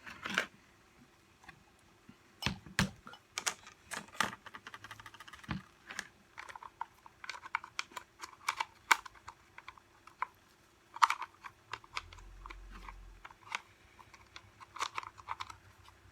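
Irregular small clicks and knocks as reciprocating-saw parts are handled and fitted into the tool's housing by hand.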